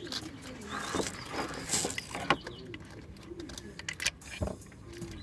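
A dove cooing: short, low, rounded coos repeated every second or so. Scattered clicks and rustles of hands working wiring in an engine bay run alongside.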